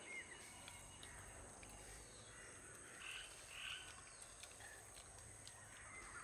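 Near silence, with a few faint animal calls about three seconds in.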